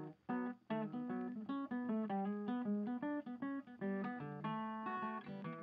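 Background music: an acoustic guitar playing strummed and plucked chords in a quick, steady rhythm.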